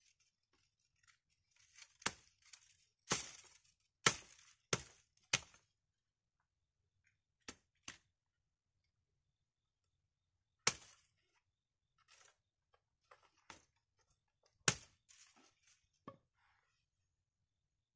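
Hatchet chopping a thin branch laid across a log: sharp chops spaced irregularly, five in quick succession early on and then single strokes a few seconds apart, with fainter cracks of twigs between.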